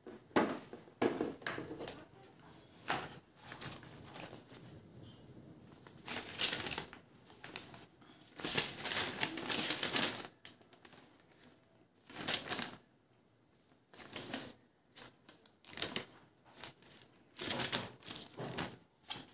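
Packaging handled during an unboxing: a cardboard box opened and a paper instruction leaflet unfolded and turned, making irregular rustles, crinkles and clicks.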